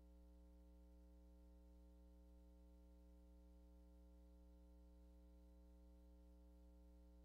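Near silence: only a faint, steady electrical hum, a low buzz with a stack of even overtones that never changes.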